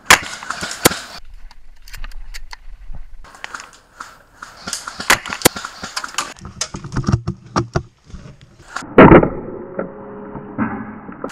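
Airsoft gunfire in woodland: scattered sharp clicks and cracks, some in quick runs, with a single loud, heavy thump about nine seconds in.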